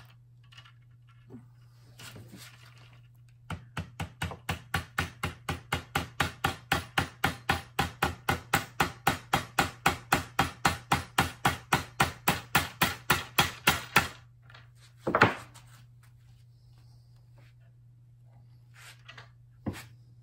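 Claw hammer tapping rapidly and evenly, about four light taps a second for some ten seconds, setting a metal hidden control arm against the louvers of a wooden plantation shutter. One heavier knock follows, then a couple of small clicks.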